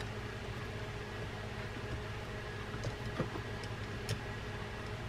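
A few small clicks and ticks from the metal and plastic parts of a Penn Battle III 4000 spinning reel being handled and fitted, about four of them between three and four seconds in, over a steady low room hum.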